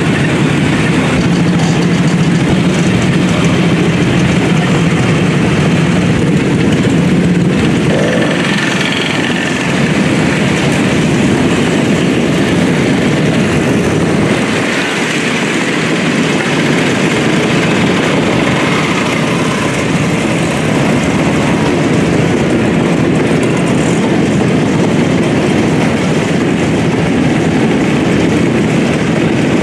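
Many vintage motorcycle and scooter engines running together as riders pull away in a procession, a continuous mix of idling and revving engines. A steady low engine hum stands out for the first several seconds.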